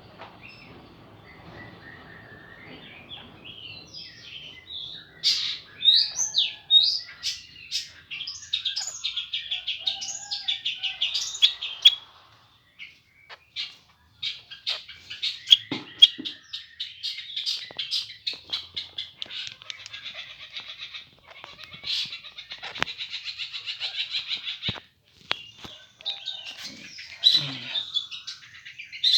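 White-rumped shama calling in fast runs of sharp chirps and rattling notes, starting about four seconds in and breaking off briefly twice.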